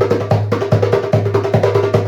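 A 10-inch Meinl djembe with a synthetic head played by hand in a quick, steady rhythm of about six strokes a second, with a low ring sustaining under the strokes.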